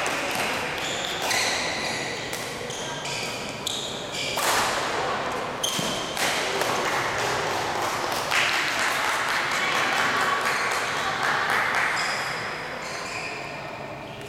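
Doubles rally in a racket sport on an indoor court: a string of sharp racket-and-ball hits mixed with short high squeaks of shoes on the court floor, with voices in the background.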